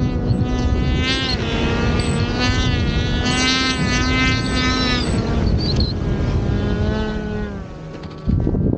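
Snowmobile engine running hard, a buzzing whine whose pitch rises and falls several times with the throttle, over low wind rumble. It fades about seven seconds in, and near the end a gust of wind hits the microphone.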